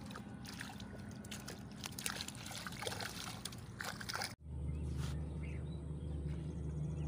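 Irregular crackling and trickling, like water dribbling or rustling close to the microphone. After an abrupt cut a little over four seconds in, a steady low engine hum takes over.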